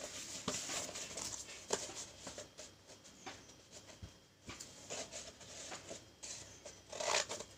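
Cardboard being cut with a craft knife and handled: scattered light scrapes and taps, with a louder scrape about seven seconds in.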